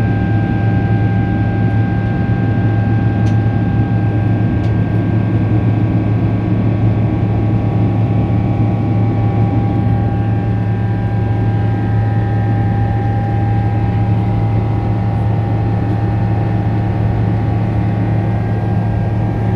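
Boeing 777 cabin noise: a steady drone of jet engines and rushing air heard from inside the cabin, with a constant low hum and a steady whine that do not change.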